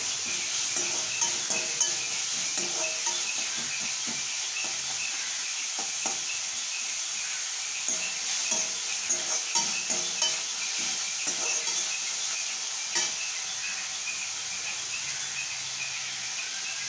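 Chopped onions, tomatoes and green chilli sizzling in oil in a metal kadai as the tomatoes cook down, with a slotted metal spatula scraping and clinking against the pan now and then as it is stirred.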